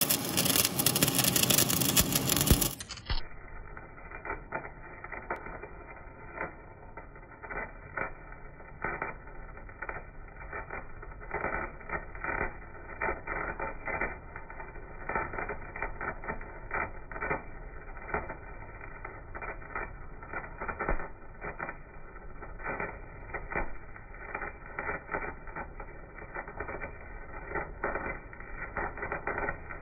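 Electric welding arc crackling and hissing, loud and bright for about the first three seconds. It then turns into the same crackle slowed down, deep and muffled, with irregular sharp pops.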